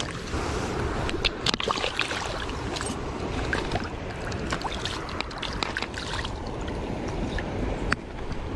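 Steady noise of river water and wind on a riverbank, scattered with many sharp clicks and taps.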